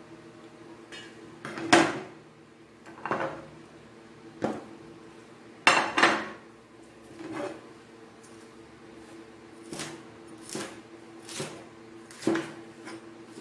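Cleaver chopping vegetables on a cutting board: about ten separate, irregularly spaced knocks, the loudest about two seconds in and again about six seconds in, over a steady low hum.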